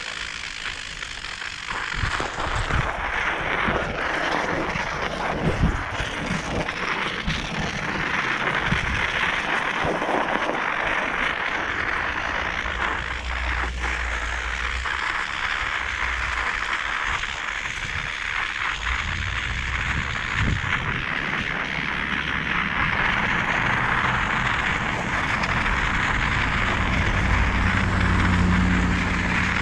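Riding a bicycle on a winter road: a steady rushing of tyres and moving air, with irregular low thumps of wind buffeting the microphone.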